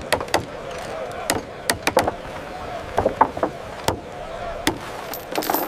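Carpenters' hammers striking timber in irregular, overlapping blows, sometimes several a second.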